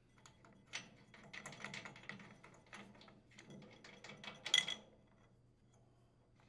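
Quiet, irregular clicking and tapping as a stamped-metal recoil starter cup is worked off a Briggs & Stratton engine's flywheel by hand, with the sharpest click about four and a half seconds in.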